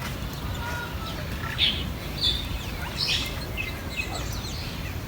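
Small birds calling in short chirps and quick downward-sweeping notes, scattered unevenly, over a steady low rumble.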